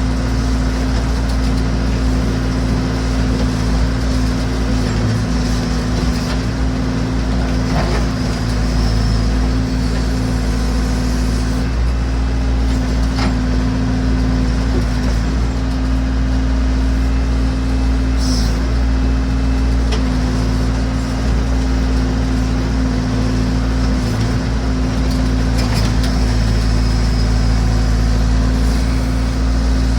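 Massey Ferguson BX 50 backhoe's engine running steadily while the machine works, with a few sharp knocks.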